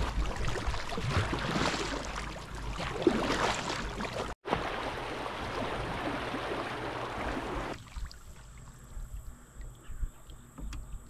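Kayaks being paddled across a river: water splashing and rushing around the hulls, with wind on the microphone. About eight seconds in, the sound cuts to a much quieter scene with a faint steady high tone and a few small ticks.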